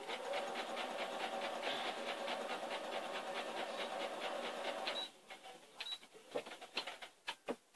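Sewing machine running steadily for about five seconds, then stopping, followed by a few light clicks and knocks.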